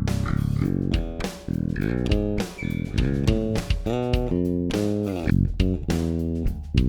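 Warwick Thumb bolt-on five-string electric bass recorded direct (raw DI, no amp or cab), playing a run of plucked notes with sharp attacks; several notes slide or bend in pitch.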